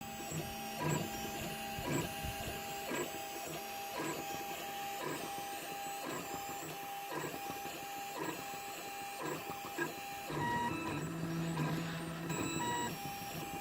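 3D printer's stepper motors moving the head as it draws, a steady whine that jumps in pitch with each move, about one move a second. About ten seconds in the pattern changes to lower, longer tones.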